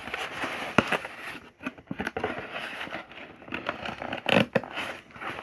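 A knife blade cutting open parcel packaging: scraping, crackling and tearing, with a couple of sharp clicks.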